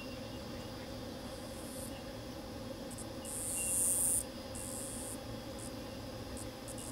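High-pitched insect buzzing coming in on-and-off bursts, the loudest lasting about a second from three seconds in and cutting off suddenly, over a steady low outdoor hum.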